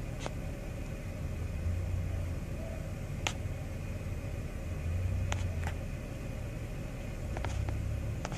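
Low, steady vehicle engine rumble heard from inside a car's cabin, swelling a little three times, with a few faint clicks.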